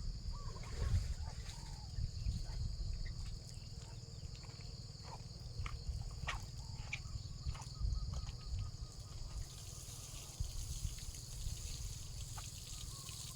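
Water trickling and splashing while cabbage plants are watered, over a steady high chorus of insects and a low rumble of wind on the microphone, with a few light clicks.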